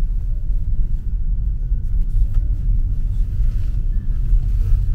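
Car driving, a steady low rumble of engine and road noise heard from inside the cabin.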